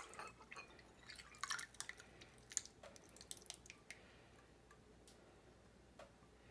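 Faint drips and small ticks of chili oil falling from a pot into a glass bowl as the pour finishes, mostly over about four seconds in.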